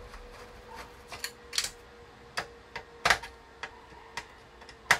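Irregular clicks and knocks of a screwdriver working inside a plastic cassette-radio cabinet. The loudest knocks come about three seconds in and near the end.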